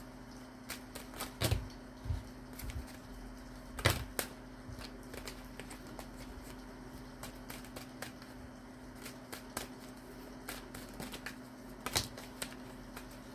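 Tarot cards being shuffled and handled: scattered light clicks and taps, with louder knocks about a second and a half in, about four seconds in and near the end, over a faint steady hum.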